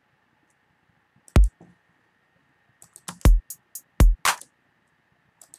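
Programmed drum-machine loop playing back from samples: a deep kick drum hits three times, about a second in, then twice close together past the three-second mark, with sharp closed hi-hat and clap hits around the second and third kicks and a few faint hi-hat ticks near the end.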